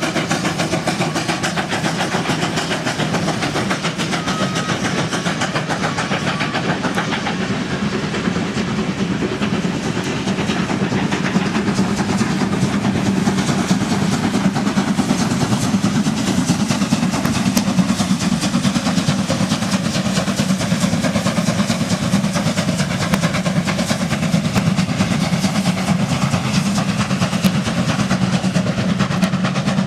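Steam locomotive passing, hauling a train of passenger coaches: its steady exhaust beat mixed with the rumble and clatter of the coaches' wheels on the rails.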